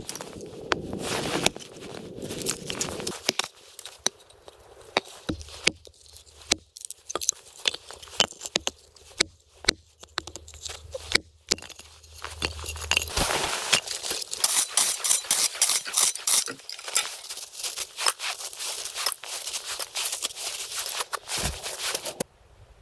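Close, irregular scraping, clicking and crackling of hands-on work, denser and brighter in the middle stretch, cutting off abruptly near the end.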